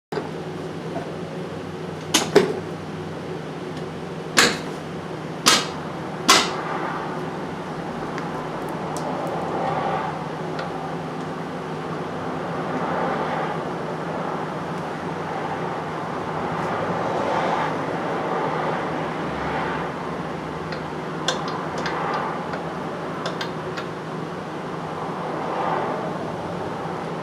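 Several sharp metallic knocks, five within the first seven seconds, over a steady mechanical hum, with fainter clicks and shifting noise later.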